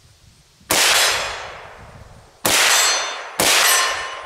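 Three shots from a suppressed AR-style rifle firing remanufactured .223 Remington 55-grain full metal jacket rounds, each a sharp crack with a long ringing decay. The first two are nearly two seconds apart, the third follows about a second after the second.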